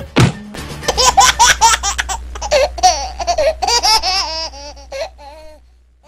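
High-pitched laughter in a rapid string of 'ha' bursts, starting about a second in and tailing off near the end.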